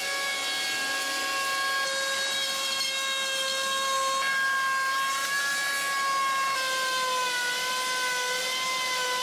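Plunge router with a 45-degree chamfer bit cutting along the edge of a red oak panel: a steady high motor whine over cutting hiss, its pitch shifting slightly a few times.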